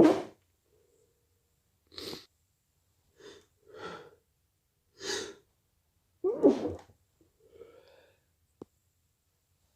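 A person sneezing repeatedly, induced sneezes: a loud sneeze right at the start and another loud one about six and a half seconds in, with short noisy breaths between them. A faint bit of voice near the end is followed by a single click.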